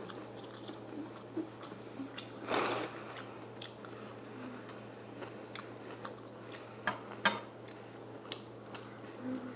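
A person chewing food, with a few light clicks of utensils and a brief rustle about two and a half seconds in.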